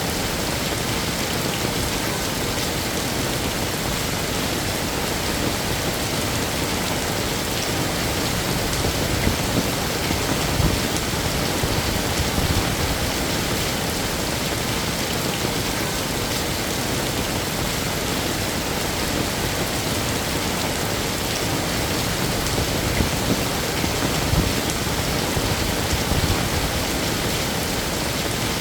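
Heavy rain falling steadily on hard surfaces, a dense even hiss with no letup.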